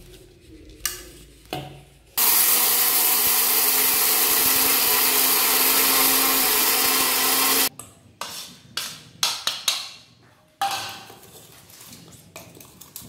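Electric mixer grinder running for about five and a half seconds, grinding roasted yellow mung dal coarsely in its small steel jar, then cutting off suddenly. Clicks and knocks come before and after as the steel jar is set on the base and taken off.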